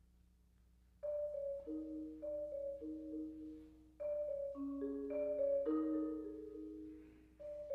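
Marimba played with mallets: a slow phrase of ringing, overlapping notes that starts about a second in, after a moment of near silence.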